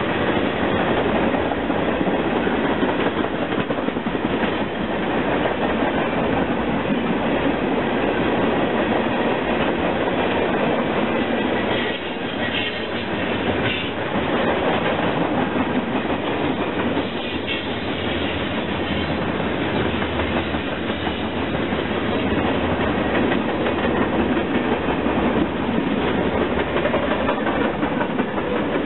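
Freight train of tank cars and covered hoppers rolling past close by: steady wheel-on-rail noise from the passing cars.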